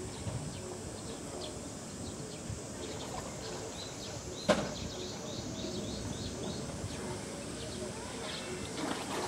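Birds chirping in short repeated calls over steady outdoor background noise, with one sharp knock about halfway through.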